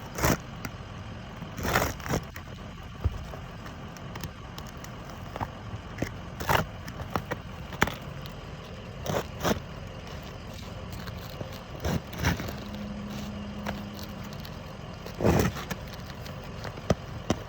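Roofing work on asphalt shingles: scattered sharp knocks every second or few, with scraping and crackling between them, over a steady background hiss.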